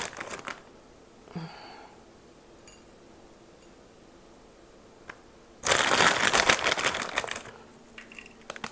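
Clear plastic bag of chopped pecans crinkling as it is handled: a short rustle at the start, a mostly quiet spell with a few small clicks, then a loud stretch of crinkling over the last three seconds.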